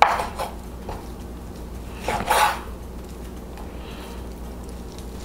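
Kitchen knife slicing raw meat on a wooden cutting board: a short scrape right at the start and a louder one about two seconds in.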